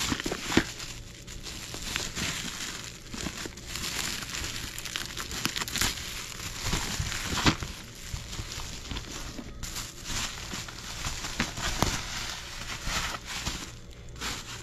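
Plastic bubble wrap crinkling and rustling as hands unwrap it and pull a cardboard box out, with many sharp crackles scattered through.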